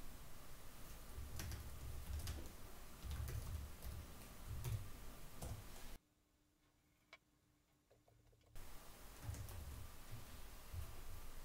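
Faint computer keyboard typing: a few scattered key clicks with soft low thumps, as a short command is typed; the sound cuts out entirely for a couple of seconds past the middle.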